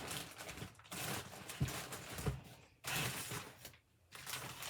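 Bags rustling and crinkling as someone rummages through them, in uneven spurts with two brief pauses.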